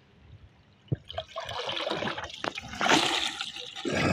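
Water splashing and pouring off a china duar trap net as it is lifted out of the water, starting about a second in and loudest near three seconds.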